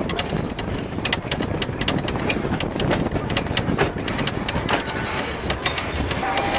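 Narrow-gauge train hauled by a Px48 steam locomotive running along the track, heard from an open passenger carriage: a steady rumble with the carriages' wheels clicking and rattling irregularly over the rails.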